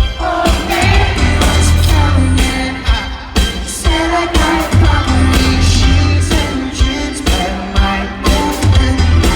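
A live pop-rock band playing loudly with a sung vocal over a heavy, pulsing bass and a steady drum beat.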